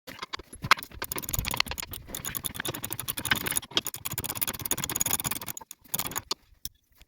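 Hand tools working on metal under a car: a long run of rapid, irregular clicking and rattling that thins out to a few clicks near the end.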